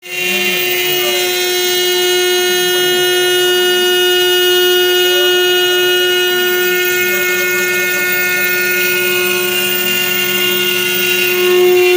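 80x80 CNC router running: a steady, high-pitched whine from the spindle, with fainter motor whines gliding up and down in pitch as the axes move. The sound gets slightly louder near the end.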